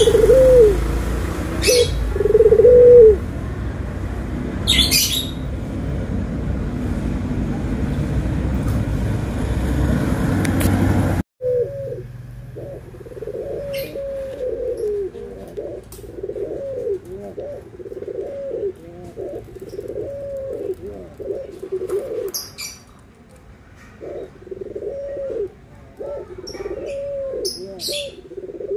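Barbary doves (puter) cooing in repeated rhythmic coos. In the first part a few coos sit over a loud low rumble. After an abrupt break about eleven seconds in, a long, steady run of coos follows on a quieter background.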